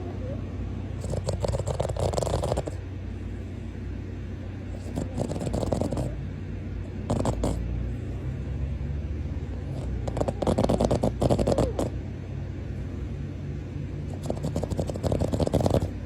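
Boston Terrier snoring in its sleep: a fluttering, rattly snore with each breath, five snores a few seconds apart.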